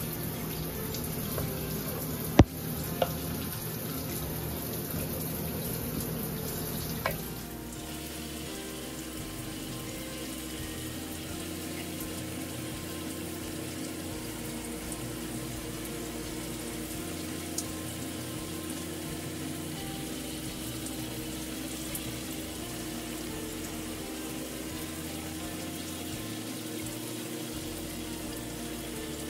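Shower water running steadily, with a few sharp knocks in the first seven seconds, the loudest about two seconds in. About seven seconds in the sound shifts and drops slightly, then runs on steadily.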